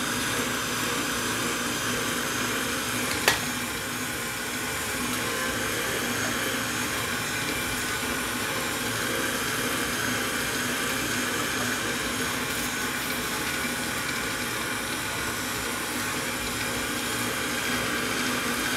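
Electric meat grinder running steadily as the cutlet mince of beef, black bread and onion is passed through it a second time. There is one sharp click about three seconds in.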